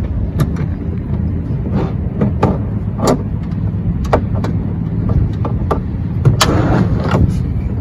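Wrenches and sockets clinking and tapping against metal as they are tried on an oil drain plug that won't come loose, a dozen or so sharp clicks and knocks, the loudest about three and six and a half seconds in. A steady low rumble runs under them.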